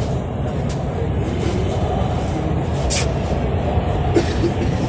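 Lahore Orange Line metro train heard from inside the carriage: a steady low rumble of the running train, with a sharp click about three seconds in and faint murmured voices.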